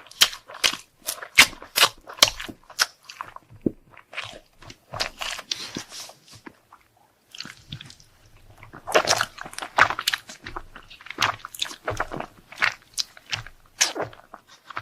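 Close-miked chewing of crunchy food: a rapid run of crisp crunches and bites, pausing briefly about seven seconds in before the chewing resumes.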